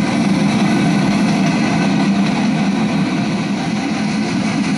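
Freight train cars rolling past: a steady, even rumble of steel wheels on the rails, with no breaks or separate clanks.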